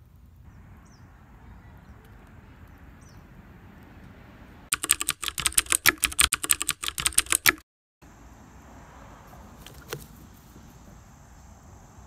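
A rapid burst of keyboard-typing clicks for about three seconds in the middle, the sound effect for the text appearing on the title card, cutting off abruptly. Before and after it, low outdoor background, with a steady high insect drone after the cut.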